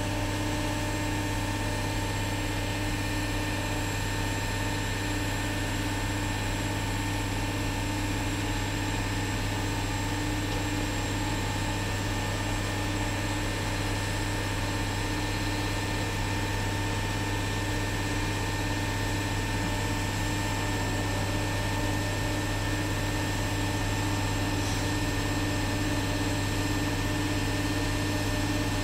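Mobile crane's engine running steadily, a low even drone with fixed tones above it.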